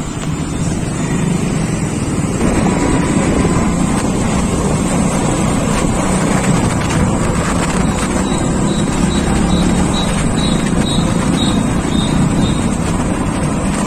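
Steady running noise of a moving vehicle, with wind buffeting the microphone.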